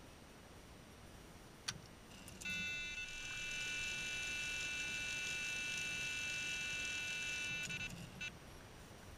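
Electronic carp bite alarm sounding one steady, unbroken tone for about five seconds, with a click just before it starts. Its chain hanger is pulled up to the rod, so this is a run: a fish taking line.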